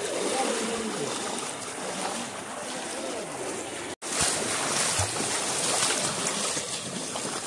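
Feet wading and splashing through shallow floodwater, a steady wash of water noise. It breaks off abruptly about four seconds in and comes back louder and brighter.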